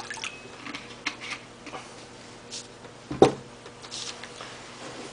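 Light clicks and taps of small hard objects being handled, with one sharp knock about three seconds in.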